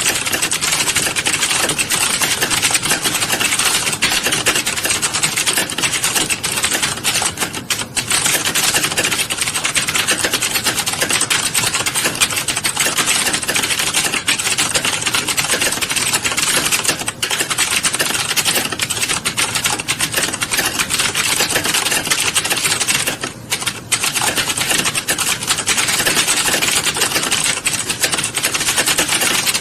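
Fast, continuous typing on a keyboard: a dense stream of key clicks, with brief pauses about eight seconds in and again a little past twenty-three seconds.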